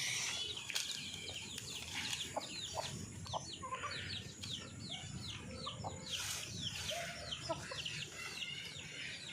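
Chickens peeping and clucking: many short, high chirps overlapping, several a second.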